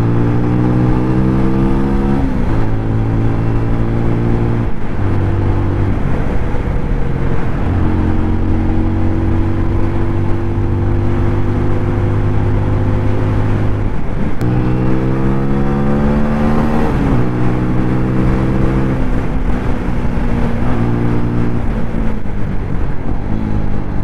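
Single-cylinder TVS motorcycle engine running while ridden. It holds steady revs in stretches, with breaks and pitch changes at gear changes, and climbs in revs a little past halfway as it accelerates. The owner says the engine has loose tappets that make a nasty noise.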